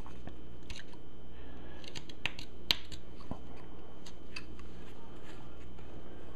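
Carving knife cutting into soft basswood, making irregular crisp clicks and snips as chips are levered out with thumb pressure; the sharpest click comes a little under three seconds in.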